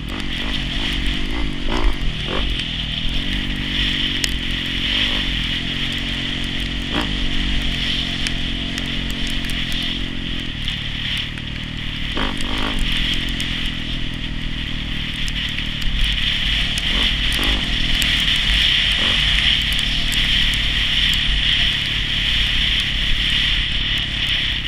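Dirt bike engine running and revving up and down as the bike climbs and rides a rough trail, with a steady high hiss and scattered sharp knocks from the bike over bumps.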